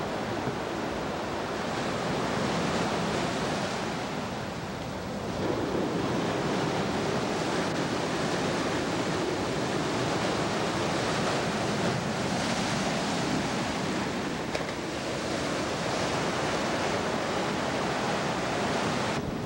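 Storm-driven surf washing onto a rocky shoreline and seawall: a continuous rushing of waves that eases briefly about four seconds in, then swells again, with wind buffeting the microphone.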